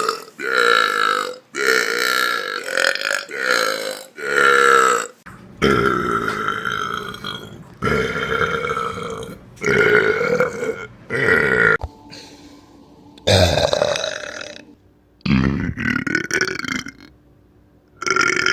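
A run of about a dozen human burps, one after another, each a pitched belch lasting from half a second to about two seconds, some short and clipped, others long and drawn out with a wavering, falling pitch.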